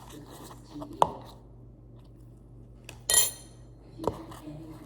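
A utensil knocking against a bowl while slime is being mixed: a few sharp knocks and, about three seconds in, a bright ringing clink.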